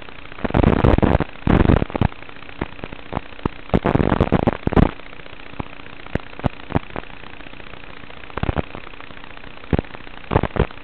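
Crackling static from the audio channel of an analog FPV video link: irregular sharp pops and short bursts of hiss over a steady faint hum. The loudest bursts come in the first five seconds.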